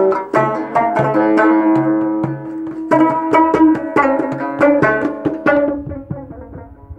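Music with a plucked-string melody and sharp hand-drum strokes, the strokes fitting a skin-headed frame drum played by hand. It drops clearly in loudness about five and a half seconds in.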